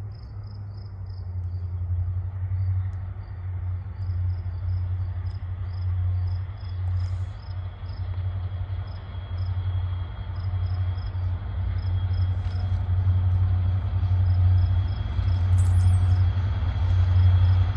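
EMD diesel-electric locomotive engines working hard in notch 8 (full throttle), a deep pulsing rumble that grows louder as the train approaches. Crickets chirp steadily in the background.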